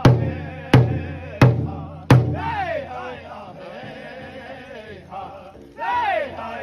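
Powwow drum group: a large hide drum struck together by several drumsticks in loud, even beats about 0.7 seconds apart. The drumming stops about two seconds in while the men keep singing high, chant-like lines that rise and fall in pitch, swelling again near the end.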